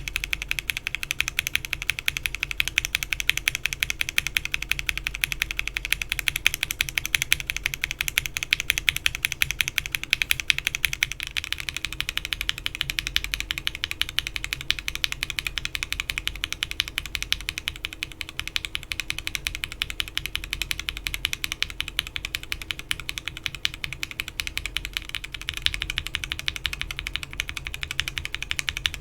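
Steady, fast typing on a mechanical keyboard with Alpaca linear switches, PBT keycaps and an FR4 plate, a dense stream of key clacks. The switches are stock at first; about 11 s in the recording changes to the same switches lubed, which sound slightly softer, and near the end to Alpacas fitted with Gateron Ink stems.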